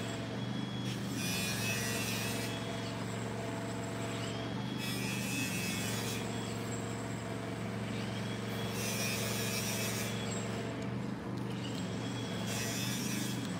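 City street noise: the steady low hum of an idling engine, with a rushing noise that swells and fades several times.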